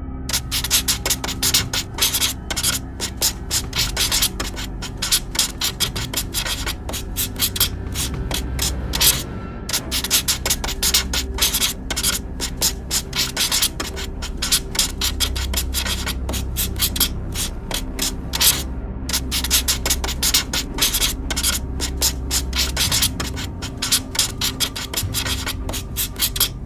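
Felt-tip brush pen rubbing and scratching on paper in quick, repeated short strokes while filling in a large area with ink.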